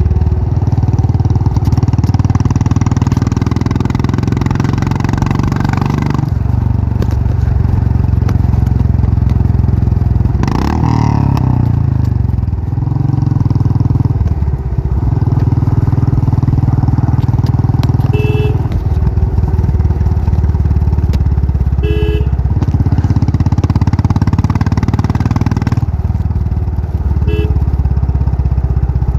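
Royal Enfield Classic 500's single-cylinder engine running steadily through its exhaust. The pitch dips about six seconds in and briefly rises and falls around eleven seconds. Short horn beeps sound three times, in the middle and near the end.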